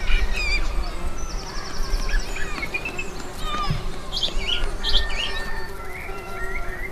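Several small birds chirping and twittering, with many short, quick calls and trills overlapping. A faint steady hum runs underneath.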